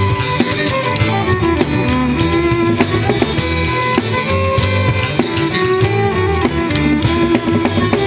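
Instrumental passage of a pop-rock song: guitars, bass and a drum kit playing, with no singing.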